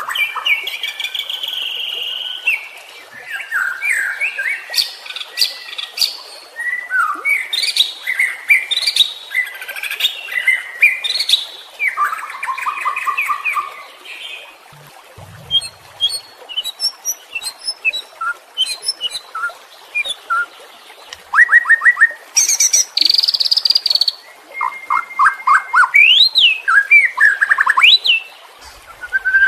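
White-rumped shama (murai batu) singing a varied song of loud whistled phrases, trills and quick chattering notes, with a quieter stretch of scattered ticks midway.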